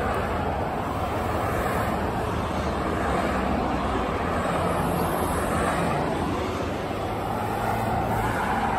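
A motorcade of Land Rover SUVs, including a police Range Rover, driving past one after another, with steady tyre and engine noise.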